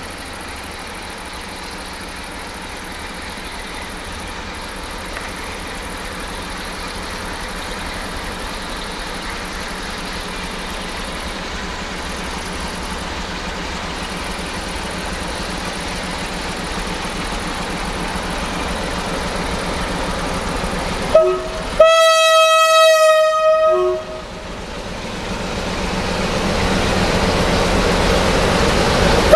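Electroputere LDE 2100 (Class 60) diesel-electric locomotive approaching with a coal train, its Sulzer diesel engine running and growing steadily louder as it nears. About 21 seconds in it gives a short toot of the horn, then a horn blast of about two seconds, with another short toot at the very end.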